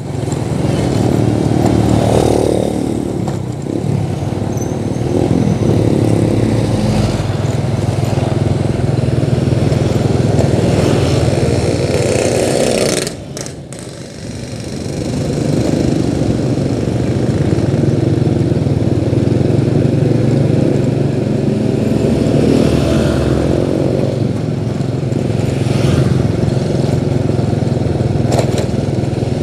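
A vehicle's engine running steadily on the move, with wind and road noise. The sound eases off briefly a little under halfway through, then builds again.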